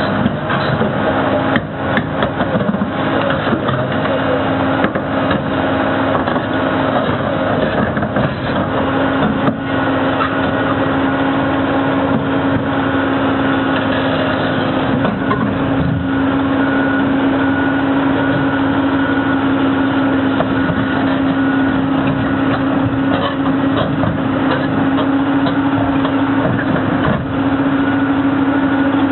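John Deere tracked log loader crawling onto a lowbed trailer: its diesel engine runs steadily under load with a constant hum, while the steel tracks and trailer deck give off scattered clanks and knocks, most of them in the first half.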